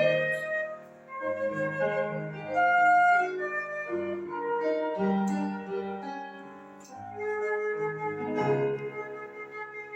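Flute playing a melody of held and changing notes over a piano or keyboard accompaniment.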